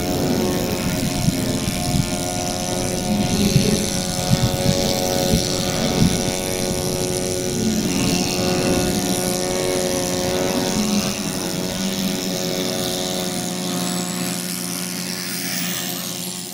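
Gas-turbine engine of a large radio-controlled T-33 model jet running with a steady whine as the jet flies past and lands. Its high whine drops in pitch near the end, and wind buffets the microphone.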